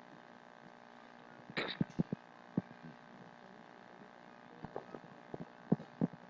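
Steady electrical mains hum from the microphone and sound system, with a brief murmur of a voice about a second and a half in and scattered soft clicks and knocks.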